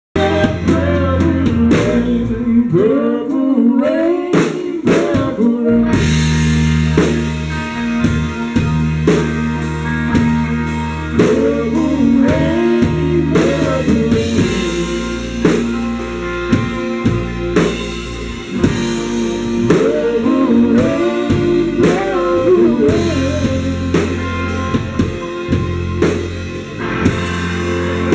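Live rock band playing: electric guitars, bass guitar and drum kit under a sung vocal line. The band gets fuller about six seconds in, when the cymbals come in.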